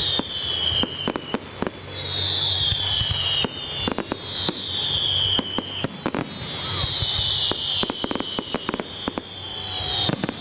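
Aerial fireworks going off: a rapid, irregular string of bangs and crackles from bursting shells, with a high whistle falling in pitch about every two seconds.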